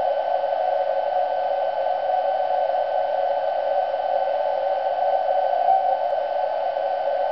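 Kenwood TS-2000X receiver audio: steady narrow-band hiss with a faint beat tone from a distant TV transmitter's carrier near 750 Hz that briefly strengthens about five and a half seconds in, a meteor-scatter reflection. Two thin steady whistles sit higher up.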